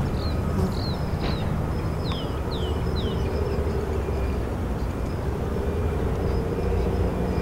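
Low, steady rumble of a distant Amtrak passenger train as its last cars pass along the shore and move off. Several short, falling bird chirps sound in the first three seconds, and a faint steady hum runs through the middle.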